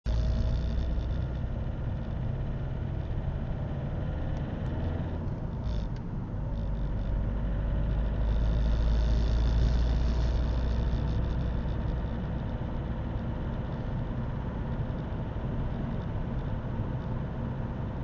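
Opel 1.7 CDTI (Z17DTJ) four-cylinder turbodiesel heard from inside the cabin while driving, running cold with a harsh tractor-like clatter. The cold-running knock was traced to a faulty Denso injector, cured by replacing it.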